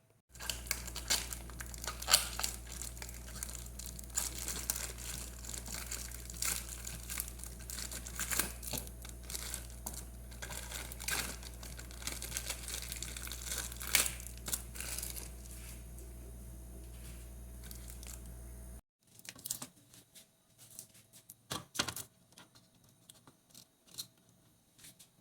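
Packaging or wrap being handled close up: crinkling and tearing with many small crackles, over a steady low hum that cuts off suddenly after about nineteen seconds; sparser handling noises follow.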